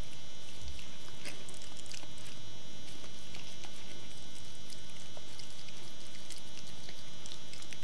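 A mother dog licking her newborn puppy clean after birth: scattered short, wet licking and smacking sounds from her mouth.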